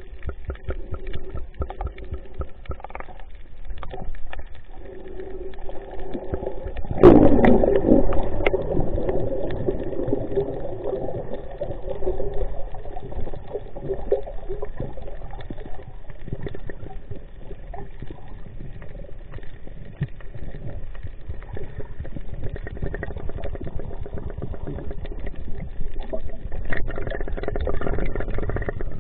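A boat engine running steadily, with a sudden louder burst about seven seconds in that fades over a few seconds.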